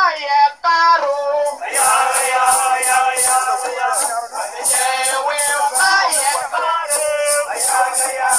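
Singing for a dance, voices holding and bending long notes. About two seconds in, a high rattling beat joins, about three pulses a second.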